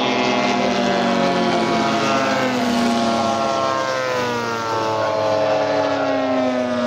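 Engines of several large-scale radio-controlled WW2 warbird models flying past together, their overlapping propeller-engine tones sliding down in pitch as the aircraft pass.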